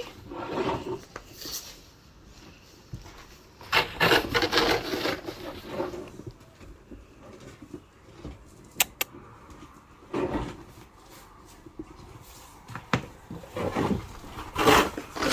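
Snow shovel scraping across a porch floor in separate strokes, with pauses between them, and a couple of sharp clicks about nine seconds in.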